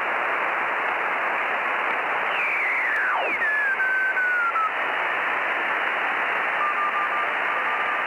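Shortwave radio receiver hiss, band noise squeezed into a narrow voice-width passband. About two seconds in, two whistles fall in pitch as the tuning sweeps across signals, and near the end a steady tone keys on and off like Morse code.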